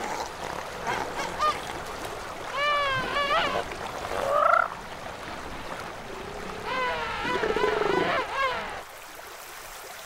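Southern elephant seal pups calling in wavering, honking cries, in a few calls between about three and five seconds in and a longer run from about seven to eight and a half seconds. The calls come over the sound of splashing river water.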